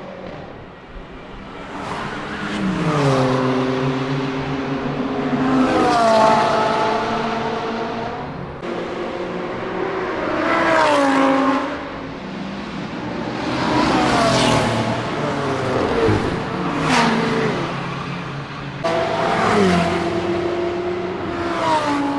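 High-performance cars passing one after another on a racetrack at speed, about half a dozen pass-bys, the engine note of each dropping in pitch as it goes by.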